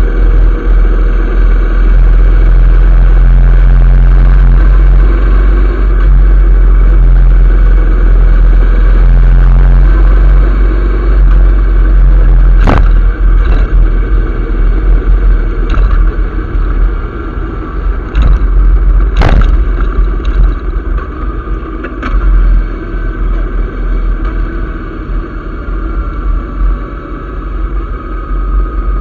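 Loud wind buffeting the microphone of a motorcycle-mounted camera at road speed, with a red shirt flapping hard in the airstream and the motorcycle running underneath. Several sharp cracks come between about halfway and three-quarters of the way through, and the level drops somewhat in the second half.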